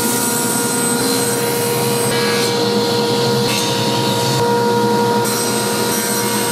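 Table saw running and ripping boards into thin strips: a steady whine from the spinning blade under the rasping noise of the cut, which shifts in tone a few times as the boards feed through.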